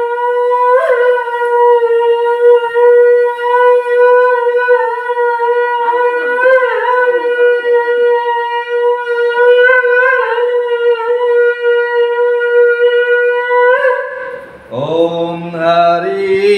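Conch shell (shankh) blown in one long, loud, steady note that wavers slightly in pitch a few times and stops about fourteen seconds in. A man's voice then begins chanting a Sanskrit mantra.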